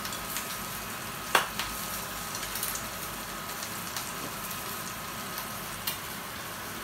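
Food sizzling steadily as it fries in a small frying pan on an electric ceramic hob. One sharp clack comes about a second and a half in, and a lighter tap near the end.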